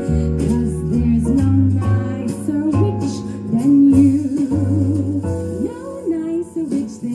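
A woman singing a song live into a microphone, her held notes wavering with vibrato, over instrumental accompaniment with a steady bass line.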